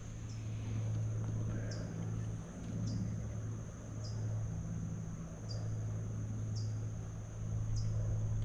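Insects buzzing on one high steady note that dips briefly about once a second. Under it, a louder low hum stops and starts every two to three seconds.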